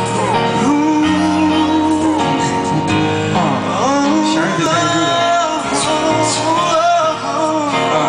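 A pop song's intro: a voice sings a gliding melody over instrumental backing.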